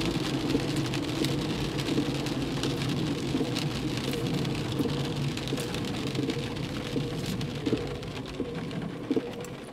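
Heavy rain pattering on a moving car's roof and windshield in a dense stream of small drop hits, over the hiss of tyres on a wet road. The road noise eases off in the last couple of seconds as the car slows.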